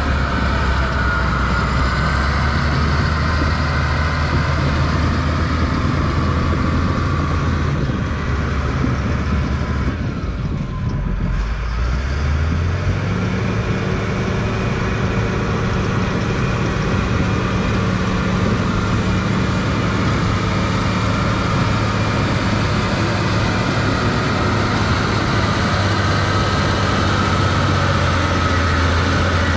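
Cat D6H Series II bulldozer's six-cylinder diesel engine running steadily while the dozer pushes dirt. About twelve seconds in, the engine speed rises and then holds at the higher pitch.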